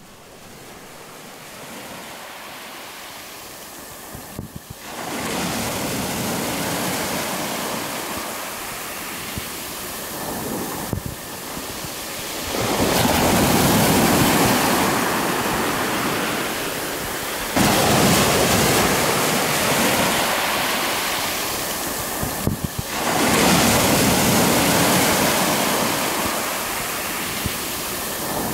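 Sea waves breaking and washing up a pebble beach. The surf swells and falls back every five or six seconds.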